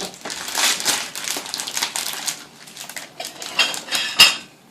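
Irregular clattering and clinking of hard objects being handled and knocked together, with a short high squeak about three and a half seconds in.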